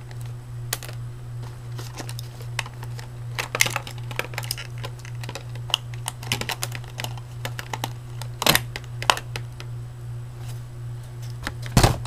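Small black packaging pieces clicking and tapping on a hard floor as they are picked up and gathered, in scattered sharp clicks with the loudest cluster near the end. A steady low hum runs underneath.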